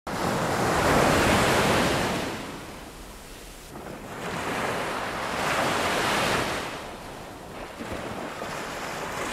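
Waves washing in and receding: a rushing wash of water that starts abruptly, swells loudest about a second in, fades, and swells again around five to six seconds in.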